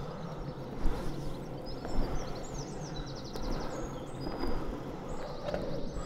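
Longboard wheels rolling steadily over tarmac, with sharp knocks from the board about one and two seconds in.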